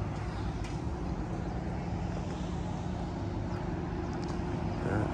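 Steady road and engine noise inside a moving car's cabin: an even low drone with a constant hum.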